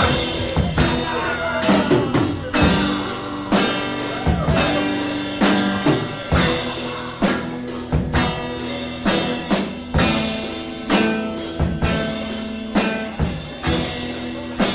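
Rock band playing: a drum kit keeps a steady beat under electric guitar chords.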